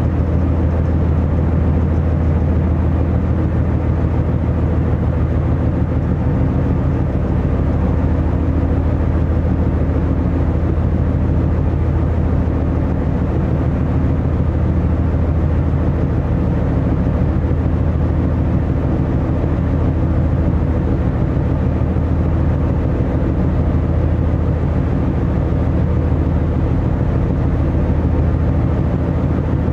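Car ferry's diesel engines running steadily under way, an even low drone with a constant rush of noise over it.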